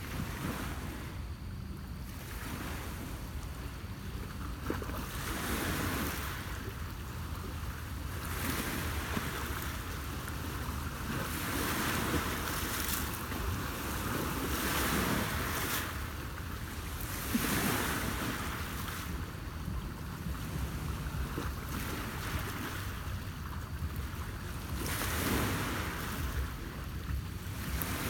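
Small Lake Ontario waves lapping and washing against a rocky shore, swelling in irregular surges every few seconds, over a steady low rumble of wind on the microphone.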